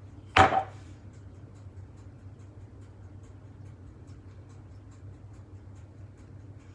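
A metal fork clinks once against a glass jar about half a second in, then scrapes and ticks faintly as it digs solid coconut oil out of the jar.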